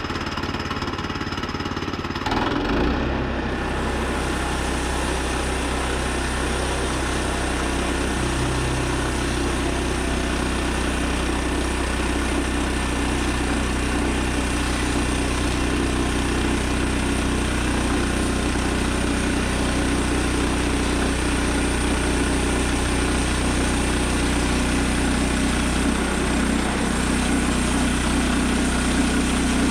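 Gas engine of a Woodland Mills 122 portable bandsaw mill running, stepping up to a stronger steady hum about two and a half seconds in as the mill is throttled up and the blade is driven through a cherry log.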